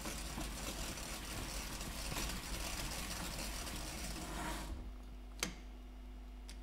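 Steady rushing noise of a road bicycle being ridden: wind and tyre hiss with some mechanical drivetrain noise. It drops away late on, leaving a low steady hum and two sharp clicks.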